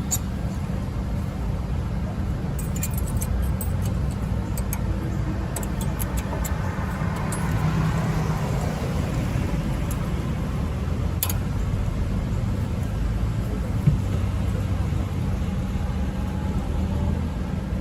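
Scattered light clicks and a short knock as new brake pad hardware clips are fitted to the caliper bracket. Under them runs a steady low rumble.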